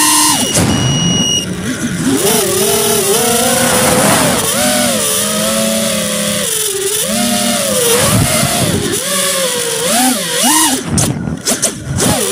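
Motors of a radio-controlled flying model heard from its onboard camera: a whine that rises and falls in pitch again and again as the throttle changes, over rushing wind noise. Near the end the wind noise turns choppy for a moment.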